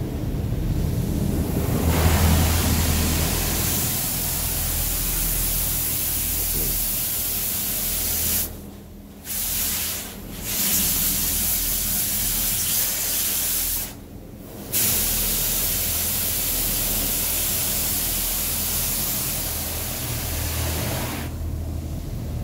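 High-pressure rinse jets of a touchless automatic car wash spraying the van, heard from inside the cabin as a loud, steady hiss of water hitting the body and windshield. The spray cuts out briefly three times in the middle as the jets pass, over a steady low hum.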